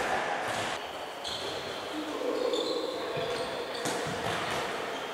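Handball practice on a wooden sports-hall floor: the ball knocking sharply a couple of times, sneakers squeaking in short high chirps, and players' voices in the background.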